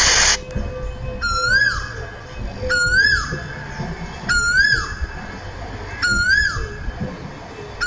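A bird calling over and over: a single rise-and-fall note with a buzzy overtone, repeated five times, about once every second and a half. A brief rushing noise cuts off just after the start, and a low rumble runs underneath.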